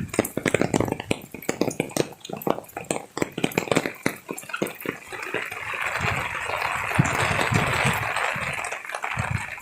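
Rainwater dripping in irregular taps, then from about five seconds in a steady rush of pouring water.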